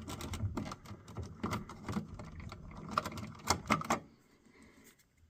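Plastic clicking and rattling as the 9-volt backup battery is pried out of a hardwired smoke detector's battery compartment: many small clicks with a few louder snaps about three seconds in, stopping about four seconds in.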